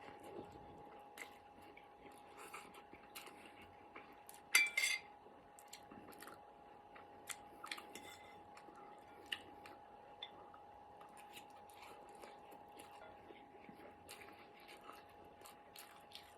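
A person eating instant noodles: quiet chewing with scattered small clicks. A brief louder clatter comes about four and a half seconds in. A faint steady hum runs underneath.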